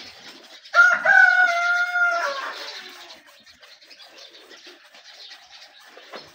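A rooster crows once about a second in, a loud call that holds its pitch and then falls away at the end. Underneath, a faint steady rasping comes from a wire saw drawn back and forth through a buffalo's horn.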